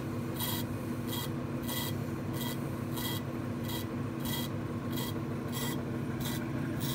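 AMMCO brake lathe running with a large brake rotor turning at its slowest spindle speed: a steady motor hum with a short raspy swish repeating about every two-thirds of a second.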